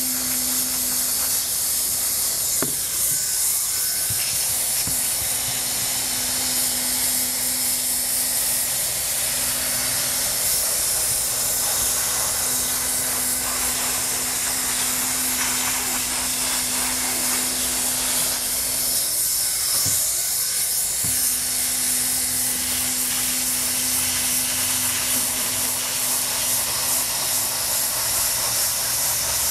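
Handheld hot-air welding gun blowing steadily while TPO roofing membrane is heat-welded: a constant hiss, with a low hum under it that drops out briefly a few times.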